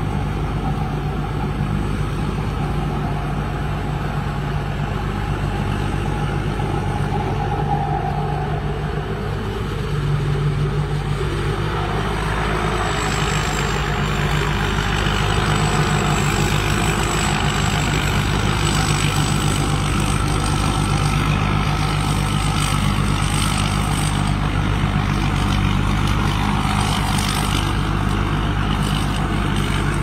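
Combine harvester's diesel engine running steadily under load while it cuts and threshes rice, a constant low hum under a rattling mechanical noise. The noise grows louder about ten to twelve seconds in as the machine swings round closer.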